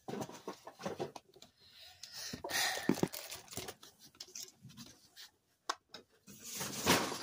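Red plastic party cups being handled and set onto a stacked cup tower: light clicks and scuffs of plastic, with two louder rustles, one about two and a half seconds in and one near the end.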